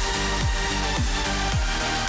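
Background electronic dance music with a steady kick-drum beat.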